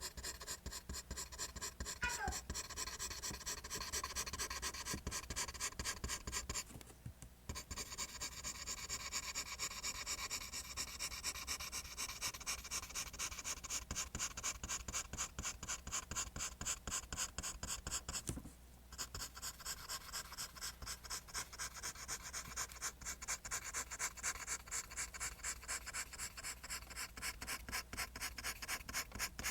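Pencil scratching across paper in rapid, even back-and-forth strokes, drawing lines. It pauses briefly twice, about seven and eighteen seconds in.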